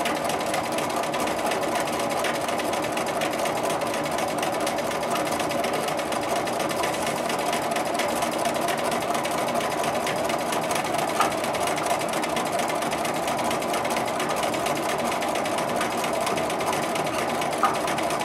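Bernina sewing machine running steadily at speed during free-motion quilting, the needle stitching rapidly through the layered quilt under a hopping foot, with two small clicks along the way.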